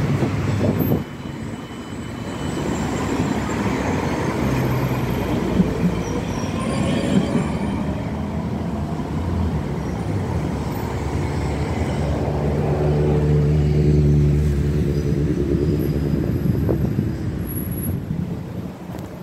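Modern electric trams on street track: the rumble of a tram right alongside at the start, then a tram approaching with a rising electric hum and rolling wheels. The hum is loudest about two-thirds of the way through, then fades.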